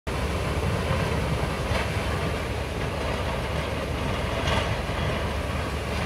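A swollen, muddy river in flood rushing steadily, a deep continuous rumble of fast-moving water.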